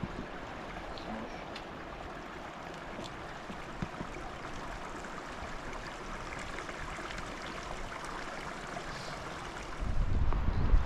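Steady rush of running stream water. A gust of wind buffets the microphone near the end.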